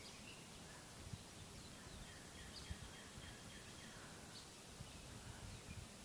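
Faint birdsong: scattered short chirps and one brief held high note, over a quiet steady background hiss.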